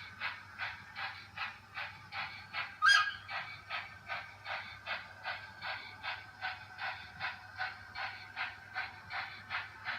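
Model steam locomotive's sound, chuffing evenly at about three beats a second over a low steady hum, with one short, loud whistle blast about three seconds in.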